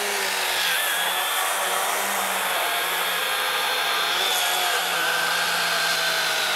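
Milwaukee M12 Hatchet 6-inch 12-volt cordless pruning saw running under load, its chain cutting through a log: a steady electric motor whine over the rasp of the chain in the wood. The motor note sags slightly about two-thirds of the way through as the cut loads it.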